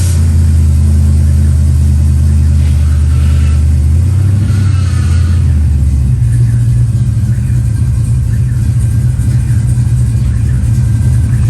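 Car engine running just after starting, loud and steady. Its note changes about six seconds in.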